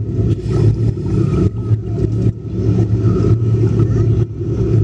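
Steady low rumble of a tour submarine's machinery, heard from inside the passenger cabin.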